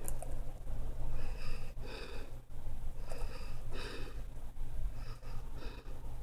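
A person breathing close to the microphone, short breaths coming in pairs every second or two, over a steady low hum.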